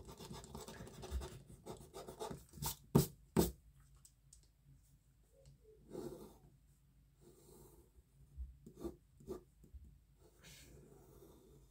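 Pencil sketching on paper: short spells of scratching strokes, with three sharp taps close together about three seconds in.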